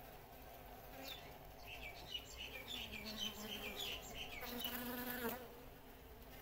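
Honey bee colony humming as the bees crawl over their fresh wax comb. About four and a half seconds in, the buzz swells for about a second and takes on a clear, steady pitch.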